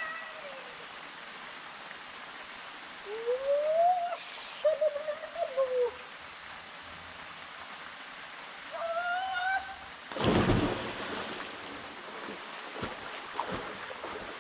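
A man whooping in rising, drawn-out calls, then a loud splash as he drops into the pool, over the steady rush of a waterfall.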